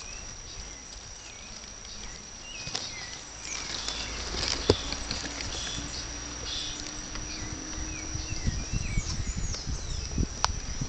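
Forest ambience: a steady high insect buzz with scattered short bird chirps. Close by, low rustling and a couple of sharp clicks from a green monkey handling and eating food on a log.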